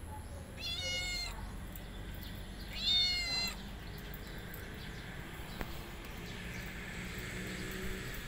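Calico cat meowing twice, about two seconds apart, the second meow louder.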